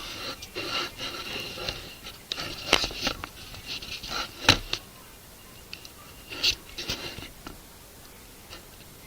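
Handling noise: rustling with several sharp clicks and knocks, like small objects being picked up and put down, dying down after about seven seconds.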